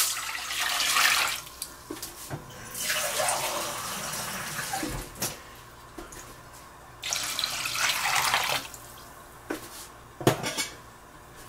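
Water pouring into a stainless steel pot in three spells, with short pauses between, and a few light knocks of metal.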